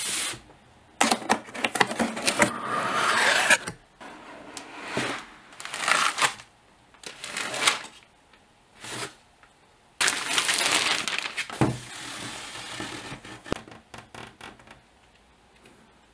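Plastic wrap and foam packing being handled and pulled off a new laptop: a series of crinkling, rustling bursts with sharp clicks, the longest about a second in and about ten seconds in, tailing off into a few light taps.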